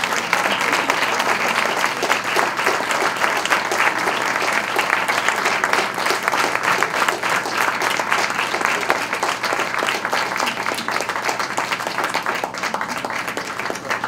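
Audience applauding steadily, thinning slightly near the end.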